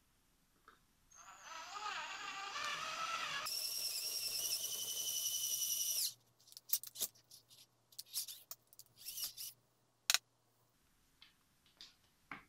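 Cordless drill whining as its bit bores into the pump head of a rust-damaged dish soap dispenser. The pitch wavers at first, then runs steady and loud for a few seconds and cuts off abruptly about six seconds in. Light clicks and taps follow as the part is handled, with one sharper click near the end.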